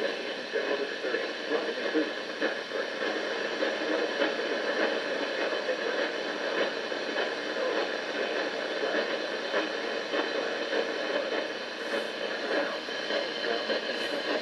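Radio Shack weather radio receiver sounding the NOAA Weather Radio broadcast of an areal flood warning. The announcer's voice runs through a steady hiss of static, because the receiver is only barely picking up the station's signal.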